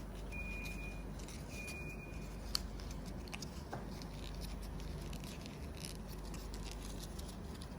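Faint rustling and creasing of A4 paper being folded and pressed into an origami magic ball, with one sharp tick about two and a half seconds in, over a low steady hum.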